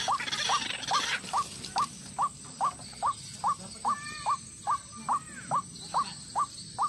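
White-breasted waterhen repeating a short upward-sliding call note, about two to three times a second, in an even, monotonous run. A hiss fades out during the first second.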